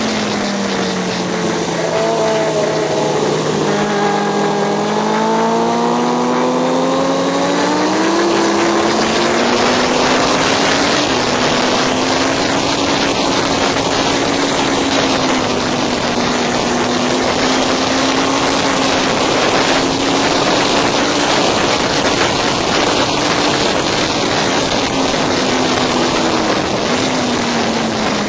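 Racing motorcycle engine heard onboard at speed, under heavy wind rush across the microphone. Its note falls over the first few seconds, then climbs back and holds high, dipping again near the end.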